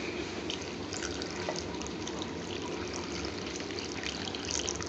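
Water pouring from a stainless steel jug onto sliced carrots and peppers in a metal pan, a steady trickle.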